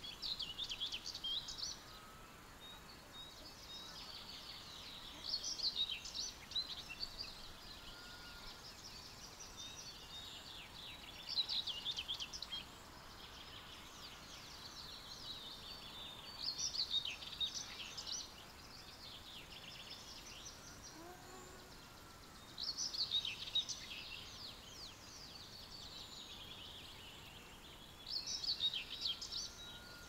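A songbird sings the same short, rapid, high-pitched phrase six times, about every five to six seconds, with fainter bird song in between and a steady open-air hiss underneath.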